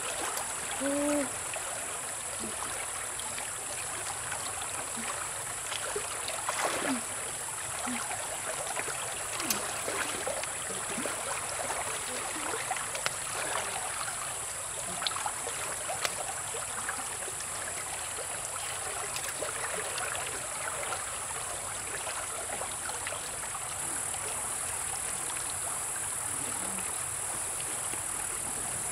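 A river stream flowing over rocks, with trickling and small splashes as water pours from the bamboo buckets of a turning water wheel. A steady, high-pitched insect buzz sounds over it all.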